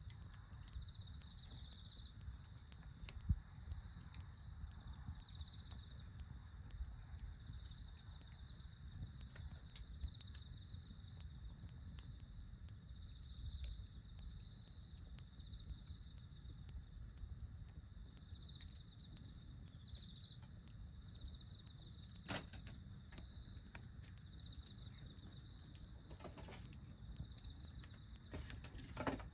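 Wood campfire crackling with scattered small pops, and a sharper crack about 22 seconds in and another near the end, over a steady high trilling of insects.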